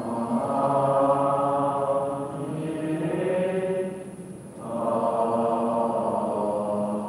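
Buddhist devotional chanting in long held notes, with a brief pause about four seconds in before the chant resumes.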